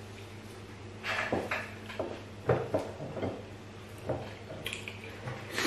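Eating noises with bare hands at a table: a handful of short clicks and knocks from fingers working food on plates and chewing, over a low steady hum.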